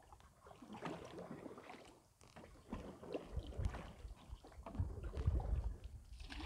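Wind rumbling on the microphone over faint water sounds from a paddled raft, with faint distant voices. The rumble is strongest in the second half.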